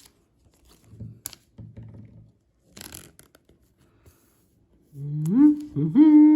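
Soft rustling and small clicks of trading cards and plastic card sleeves being handled. About five seconds in, a man hums or sings out two notes, each sliding upward and the second held.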